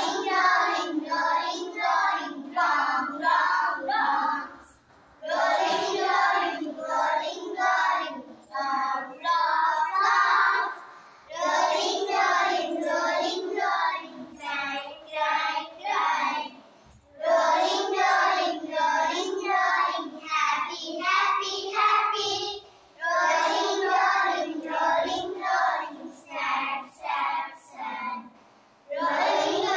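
A group of young children singing an action song together in unison, in phrases of a few seconds with brief pauses between them.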